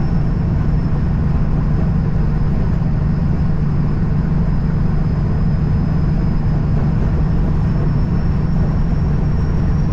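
Steady drone of a semi truck's diesel engine and tyre noise heard inside the cab at highway cruising speed, with a faint steady high whine above it.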